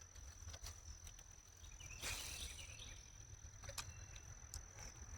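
An insect giving one steady, unbroken high-pitched trill, with a low wind rumble on the microphone, a few light clicks and a brief rustle about two seconds in.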